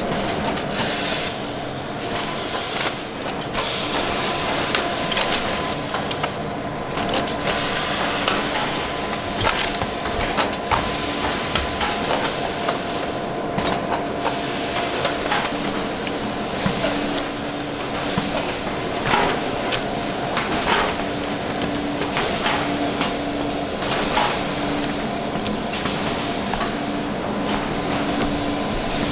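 Food-factory production-line machinery running: a steady hiss and hum with a tone that cuts in and out, and irregular sharp clicks and clacks.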